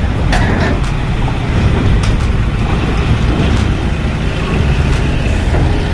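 Loaded Mitsubishi diesel truck driving slowly past, its engine running with a steady low rumble, with several sharp metallic clanks as the wheels roll over the steel grating of the ferry ramp.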